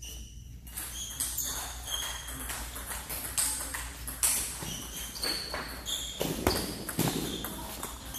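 Table tennis rallies: balls clicking sharply and irregularly off paddles and the table, several tables' rallies overlapping, many hits with a short ringing ping.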